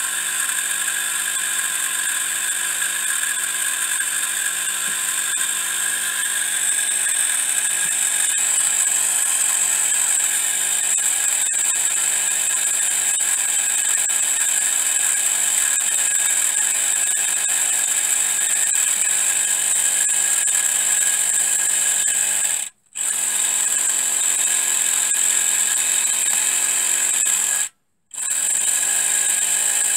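Miniature three-cylinder steam engine with Maudslay reversing gear running fast with a steady whir and hiss. The sound cuts out briefly twice near the end.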